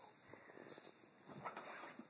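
Near silence: faint rustling, with a soft bump about one and a half seconds in.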